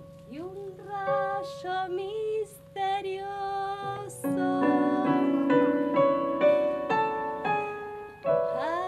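A woman singing a gliding melody without clear words, accompanied by an electric keyboard playing piano-like notes; fuller keyboard chords come in about four seconds in and hold under the voice.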